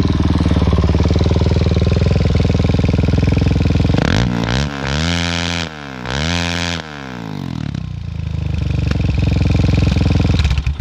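Suzuki DR-Z400SM single-cylinder four-stroke engine through an aftermarket Akrapovič-style exhaust with the dB-killer removed, running loud. About four seconds in it is revved in two quick blips, pitch rising and falling each time. It then settles to steadier running that grows louder towards the end.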